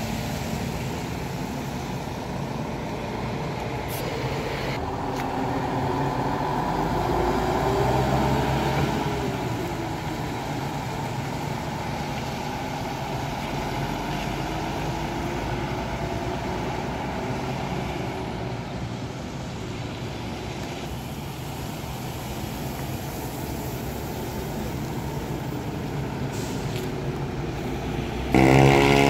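Hino RM2PSS Grandeza coach's diesel engine pulling through the junction, its pitch rising then falling about a quarter of the way in, over steady traffic noise and tyre hiss on wet pavement. Near the end a louder coach engine cuts in abruptly.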